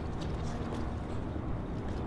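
Steady low rumble of highway traffic, with a few faint light ticks above it.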